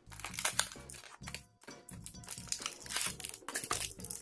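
Thin plastic snack packet crinkling in the hands, a quick run of sharp crackles as it is handled, over background music.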